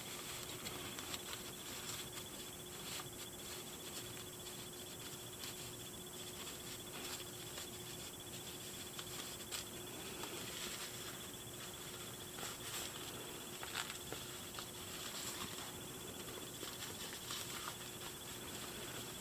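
Faint rustling and small clicks of a plastic doll and its fabric clothes being handled, over a faint steady hum.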